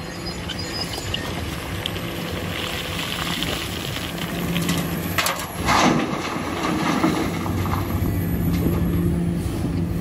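Komatsu 400LC hydraulic excavator's diesel engine running steadily while it works, with a loud pour of rock from its bucket into a dump truck's bed about five and a half seconds in.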